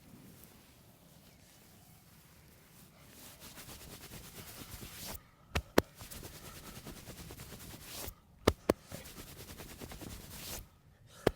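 Rapid percussive massage: hands drumming quickly on the body in three spells of fast, even tapping, each broken off by a brief pause with two sharp, loud slaps or claps.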